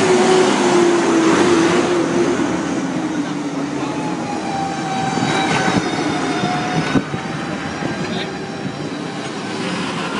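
Tractor engines running as tractors set off on a road run, the engine note falling slowly over the first few seconds. One sharp knock comes about seven seconds in.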